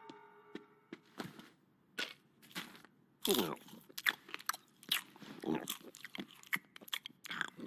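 Popcorn being chewed with the mouth open: a string of uneven crunches with short gaps, louder and closer together from about three seconds in.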